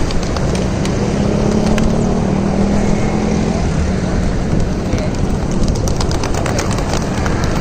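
Street traffic with a motor vehicle passing, its low engine hum clearest for a few seconds, over steady wind rumble on the microphone. Light clicks and flutters come in the second half.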